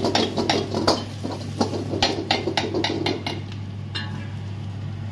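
Metal ladle knocking and scraping against a steel wok while onions are stir-fried, a quick run of clanks that thins out after about three seconds, over a steady low hum.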